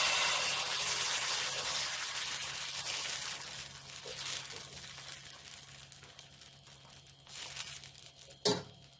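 Uthappam batter sizzling as it is poured and spread on a hot iron tawa, the sizzle strongest at first and slowly dying down. A single sharp knock near the end.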